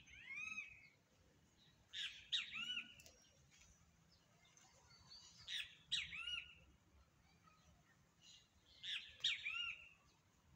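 A songbird singing short phrases of quick rising-and-falling chirps, four phrases repeated about every three to four seconds.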